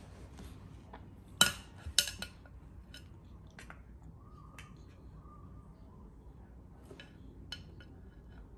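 Wooden chopstick knocking and clinking against a bowl: two sharp knocks about a second and a half in, then scattered lighter taps as it pokes around inside.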